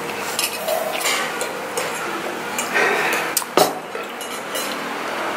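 Cutlery and crockery clinking at a dining table: spoons and forks knocking against plates and bowls in scattered light clicks, with one louder knock about three and a half seconds in.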